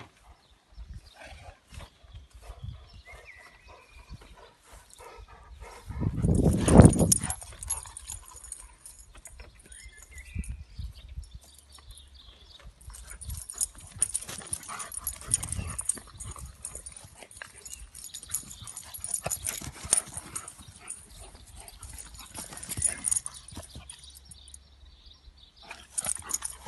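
Black-and-tan dog at play with a toy on grass: its breathing, snuffling and movement, in scattered short noises. A loud low rumble about six seconds in.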